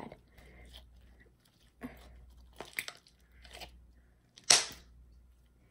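Homemade slime being stretched, squeezed and folded in the hands, giving a series of short soft squelches and crackles, with one sharper, louder pop about four and a half seconds in.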